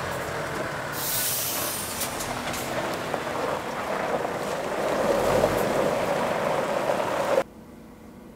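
Scania truck rolling slowly over a gravel road, its tyres crunching on the gravel with the engine running underneath, and a burst of hissing about a second in. Near the end the sound cuts off suddenly to the much quieter hum of the cab interior.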